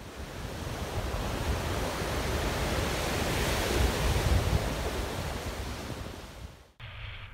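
Ocean surf breaking and washing up a sandy beach, with strong wind rumbling on the microphone; the sound swells about halfway through. It cuts off suddenly near the end.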